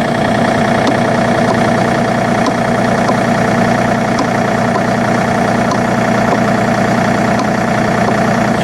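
John Deere 3025E compact tractor's three-cylinder Yanmar diesel running steadily, with a steady whine over the engine note.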